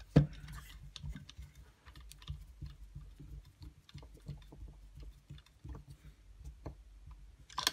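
Hand screwdriver driving a screw down into an airsoft rifle's pistol grip: a run of small, irregular clicks and taps from the tool and screw, with a sharper knock just after the start.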